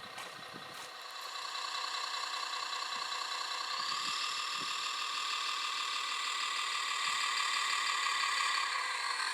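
Steady whine of a radio-controlled model construction machine's small electric motors and gearing, with several even tones and little deep rumble. It grows louder over the first few seconds and then holds.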